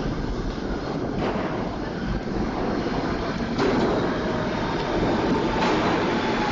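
A subway train approaching along the tunnel into the station: a steady rumble that grows louder partway through, with a few sharp clicks from the wheels and a faint whine coming in near the end.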